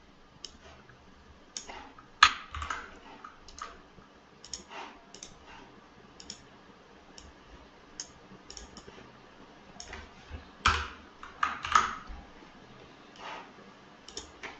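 Scattered clicks of a computer mouse and keyboard at irregular spacing, with two busier runs of clicks about two seconds in and around ten to twelve seconds in.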